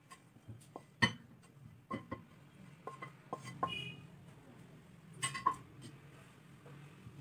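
Wooden spatula scraping and tapping thick cooked filling out of a nonstick pan into a ridged glass bowl, with the pan clinking against the glass. Scattered knocks and short ringing clinks, loudest about a second in and again about five seconds in.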